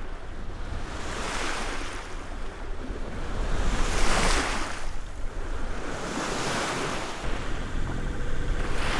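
Water rushing and swishing along the hull of a sailboat under way, swelling in surges every couple of seconds and loudest about four seconds in, over a low rumble of wind on the microphone.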